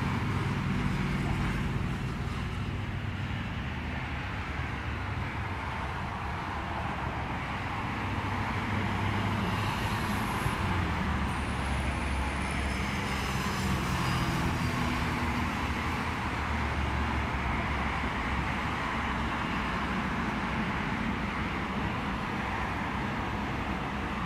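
Steady rumble of road traffic, with a faint high tone briefly about ten seconds in.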